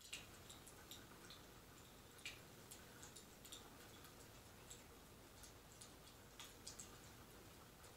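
Faint crackling of a wood fire from a fireplace ambience track: irregular small pops and snaps over a low steady hiss.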